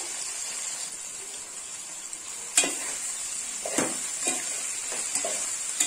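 A steel spoon stirring and turning part-cooked vegetables in an aluminium cooking pot, with about five knocks of the spoon against the pot, the sharpest about two and a half seconds in, over a steady high hiss.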